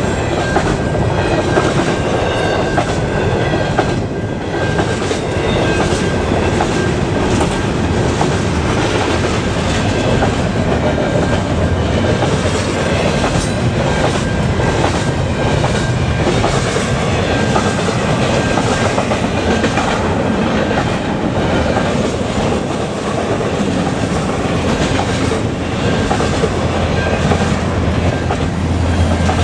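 Double-stack container cars of a freight train rolling past at speed, wheels clicking steadily over the rail joints. Near the end, the low rumble of the trailing EMD SD70M-2 diesel locomotive pushing as a rear DPU grows in.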